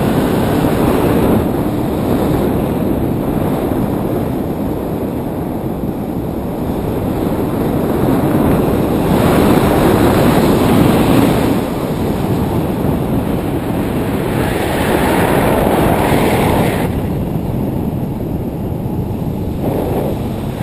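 Wind rushing over the microphone of a paraglider's onboard camera in flight: a loud, even roar that swells and eases every few seconds.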